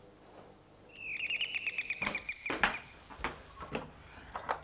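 Electronic doorbell ringing with a fast bird-chirp trill of about fifteen high chirps, lasting under two seconds; the door is then answered. Footsteps on a wooden floor follow as a few separate knocks about half a second apart.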